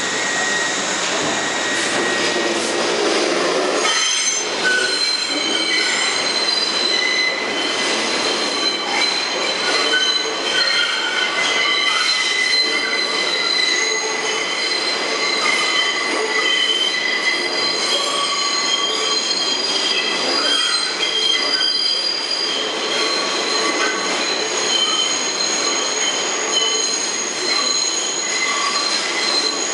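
R62A subway train pulling out around the tight Old South Ferry loop curve, its steel wheels squealing against the rail in several high, steady pitches over the rumble of the passing cars. The squeal thickens into more pitches about four seconds in.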